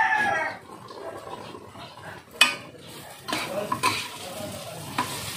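Cooking utensil stirring and scraping fried tofu and pork in a pan with a light sizzle, with a sharp clank against the pan about two and a half seconds in and smaller clinks after it. A rooster's crow trails off at the very start.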